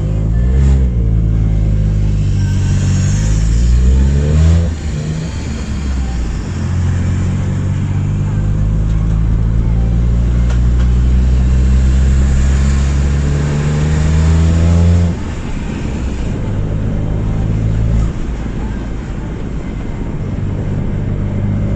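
Car engine running with a broken exhaust flex joint, the exhaust leaking and blowing loudly. It is revved up briefly twice, then held at raised revs for about eight seconds before dropping back to a lower, steady speed.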